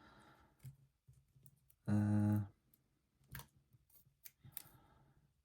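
Faint clicks and taps of small parts and tools being handled while working on a small FPV drone, with a short low hum about two seconds in.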